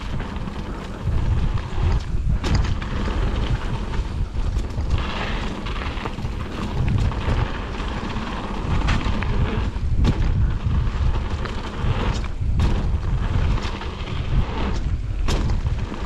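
Mountain bike riding down a dirt trail: a steady rumble of wind on the microphone and tyres on dirt, with a few sharp knocks and rattles as the bike goes over bumps.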